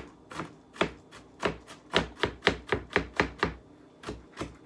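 Chef's knife mincing an onion on a wooden cutting board: a run of sharp knocks, about three or four a second at their fastest, with a short pause near the end.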